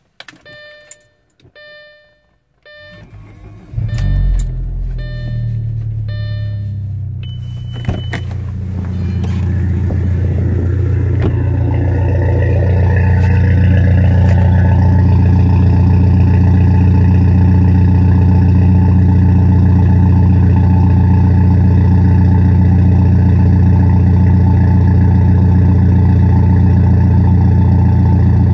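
Audi 1.8T turbocharged four-cylinder cold-starting: a repeating chime, then the starter cranks and the engine catches about four seconds in and settles into a steady idle. The engine is breathing through a custom exhaust: a 3-inch stainless downpipe and 2.5-inch pipes to a chamber and 1-to-2 splitter. The idle gets louder and deeper from about twelve seconds on, heard at the tailpipes.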